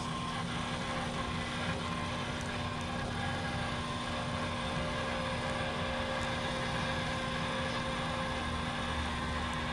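Blackstone propane pizza oven running: the steady noise of the gas burner with a constant hum from the motor that turns the stone.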